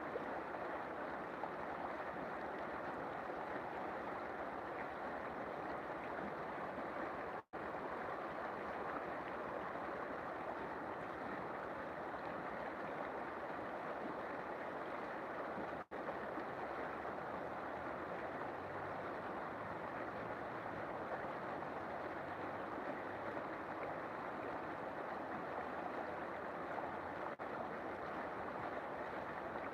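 River water flowing and rushing steadily, with two momentary dropouts to silence, about a quarter of the way and about halfway through.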